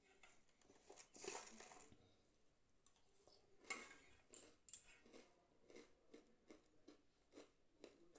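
Faint crunching and chewing of roasted puffed rice with chickpeas: a soft rustle about a second in, then scattered small crisp crackles.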